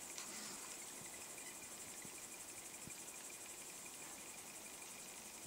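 Crickets chirring in a faint, steady, high-pitched trill, with a few faint soft ticks underneath.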